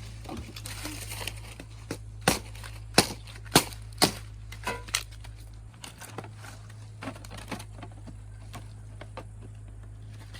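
Sharp chopping knocks, a run of strokes about half a second apart in the first half and fewer, fainter ones later, with crackling rustle of dry leaves between: a blade cutting sugarcane.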